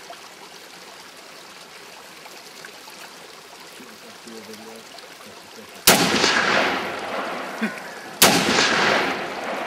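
Two rifle shots from a Kel-Tec RFB bullpup in 7.62×51mm NATO, about two and a half seconds apart, each followed by a long rolling echo that fades over a couple of seconds.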